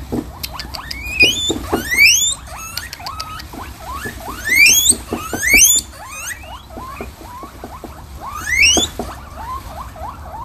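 Guinea pigs wheeking: loud squeals that rise sharply in pitch, repeated every second or two, with shorter chirps in between. Wheeking is the call guinea pigs make when begging or excited, typically in anticipation of food.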